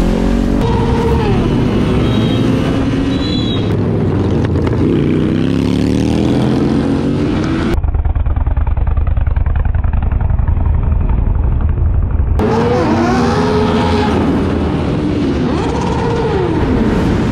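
Sport motorcycle engines revving and accelerating, the engine pitch climbing and dropping again and again as the throttle is worked. In the middle there are a few seconds of duller, lower engine sound, then more revving near the end.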